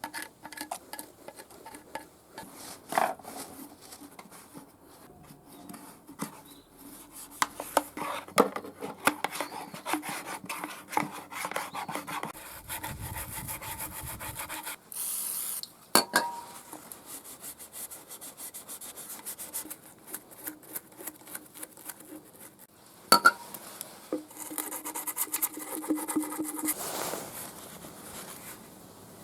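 Hand work on small brush cutter engine parts: repeated scraping and rubbing, with scattered clicks and light metal clinks, a brief hiss about halfway, and a few sharp knocks.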